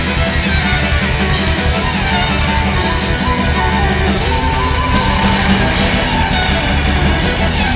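Folk metal band playing live, with distorted electric guitar, bass and drums and a violin carrying the melody.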